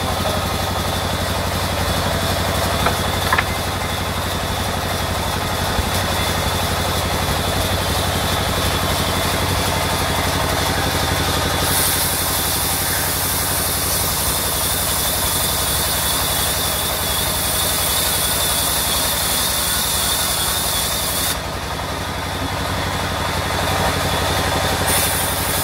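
Sawmill band saw running steadily and ripping a rain tree slab lengthwise. A high hiss of the blade in the wood comes in about halfway, stops for a few seconds and returns near the end. Two knocks of wood come about three seconds in.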